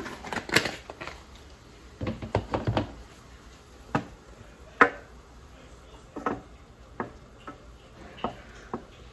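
Wooden spoon stirring sauce in a stainless steel pan, knocking against the pan in sharp single taps about once a second. There is a cluster of knocks and clatter in the first second and again about two seconds in.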